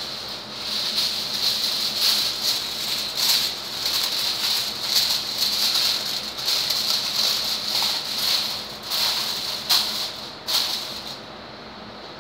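Aluminium foil crinkling and rustling as it is handled and laid over a pot, full of short sharp crackles, stopping about eleven seconds in.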